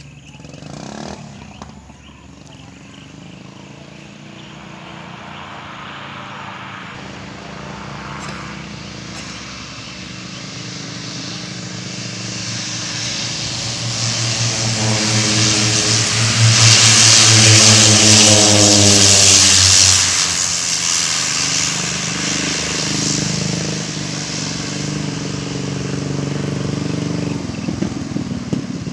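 Twin turboprop engines of a Harbin Y-12 on landing approach, growing steadily louder as the aircraft nears. It is loudest about two-thirds of the way in, where its propeller drone falls in pitch as it passes, then it eases off.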